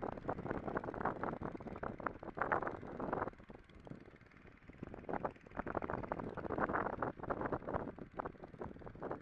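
Wind buffeting the microphone on the bow of a moving sailing yacht, in uneven gusts with a lull about three and a half seconds in.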